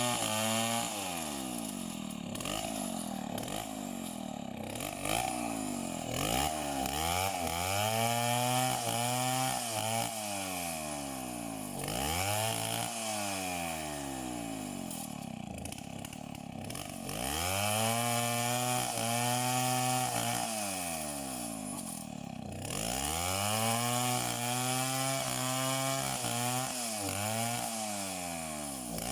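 Two-stroke chainsaw engine running, its pitch rising and falling again and again as it revs up and drops back, about six times.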